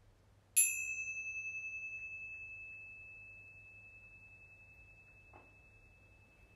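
Tingsha cymbals struck together once, about half a second in, then a single high, wavering tone that slowly fades.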